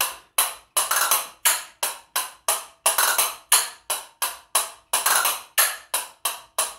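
A pair of castanets struck against each other in the choque stroke, in a steady rhythm of sharp clacks, about three a second, some coming in quick pairs.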